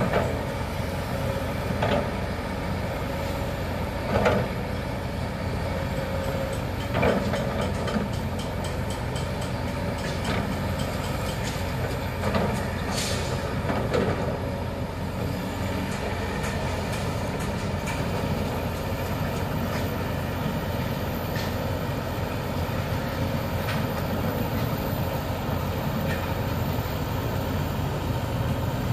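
Kobelco SK200 hydraulic excavator running at work, its diesel engine a steady drone, with several sharp knocks in the first half and a faint high whine over the last third.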